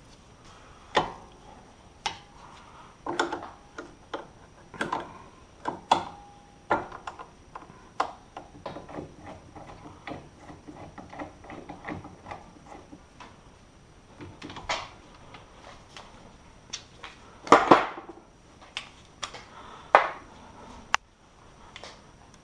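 Irregular clicks, clinks and knocks of hand tools and metal parts being handled while working on a car's front brake and suspension assembly, a few strikes ringing briefly; the loudest clatter comes about three quarters of the way through.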